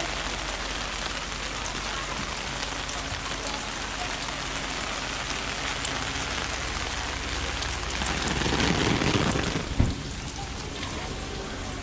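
Steady rain falling, an even hiss. About eight seconds in it swells to a louder, rougher rush for under two seconds and ends in a single knock.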